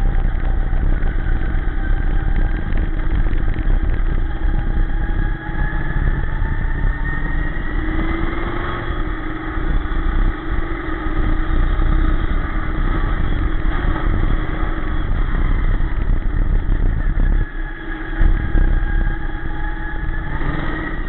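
Dirt-track sportsman race car's engine at racing speed, heard from inside its cockpit, rising and falling in pitch as the throttle goes on and off through the laps, with a brief lift near the end.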